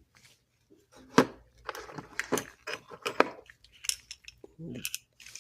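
Zippo lighter parts being handled: a sharp metal click about a second in, then a run of clicks and scrapes as the lighter insert and the table-lighter case and base are worked apart.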